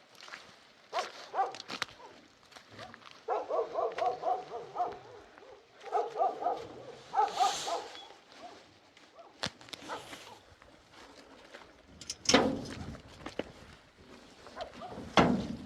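Runs of short, quick animal calls, then a few sharp knocks and a heavier thud near the end.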